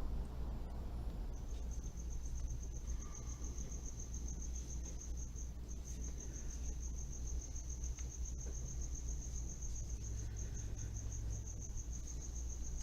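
An insect trilling: a steady, high-pitched, rapidly pulsing trill that starts about a second and a half in and breaks off briefly near the middle, over a low background hum.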